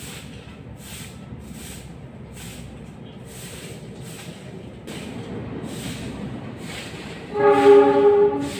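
A loud horn of several steady tones sounding together blows once for about a second near the end, over steady background noise.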